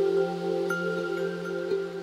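Ambient film score: slow, soft held notes layered into a chord, with new higher notes fading in one after another.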